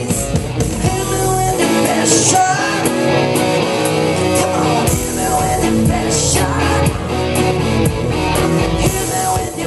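Background rock song with singing and guitar.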